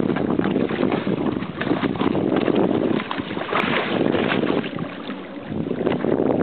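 Steady wind rushing over the microphone on an open boat, with water splashing alongside the hull where a hooked bluefish thrashes at the surface.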